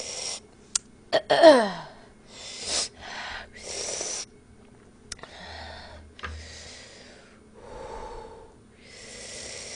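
A woman hissing and huffing sharp breaths in and out through her open mouth, the reaction to the burning heat of Buldak fire-chicken spicy noodles. About one and a half seconds in, a short vocal cry falling in pitch is the loudest sound.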